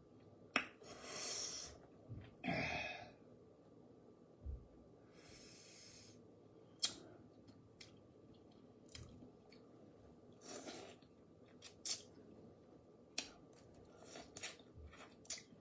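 Eating crawfish: scattered sharp clicks and cracks of the shells and claws being broken, with wet chewing and mouth smacking. A few short noisy sniffs and breaths break in between, from a runny nose brought on by the spicy seasoning.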